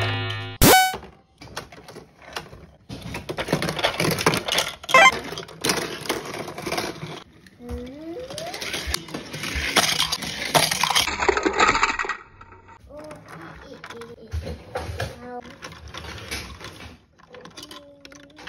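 Toy vehicles and plastic pieces clattering and rolling on a plastic playset track, with a sharp click about a second in; the clatter is busiest in the first half and thins out after.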